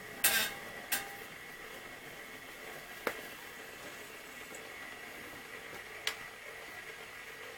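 Vinyl record playing silent groove on a vintage Schaub Lorenz turntable through a tube amplifier: steady surface hiss with a faint steady whine, and a few sharp pops and clicks, the loudest just after the start, then about one, three and six seconds in.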